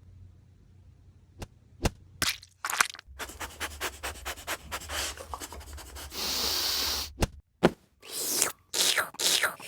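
Dubbed-in sound effects: a few sharp clicks, then a busy run of scraping and rubbing noises that start and stop abruptly, with a steady hiss about six seconds in.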